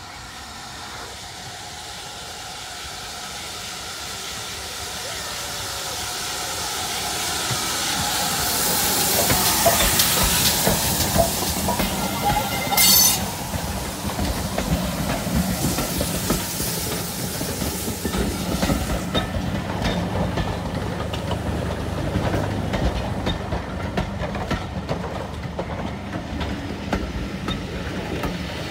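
Steam locomotive approaching, its steam hiss growing steadily louder as it draws near and passes close, with a short, loud burst near the middle. After that a train of coaches rolls past with a steady clatter of wheels clicking over the rail joints.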